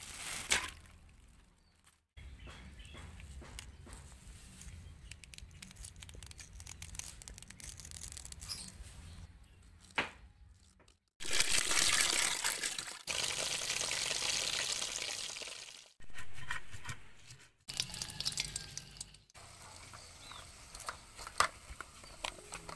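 Several short kitchen clips cut together, with clicks and wet handling sounds. The loudest, in the middle, is tap water running into a basin as eels are washed by hand. Near the end a wooden spatula taps and scrapes while stirring eels in a wok.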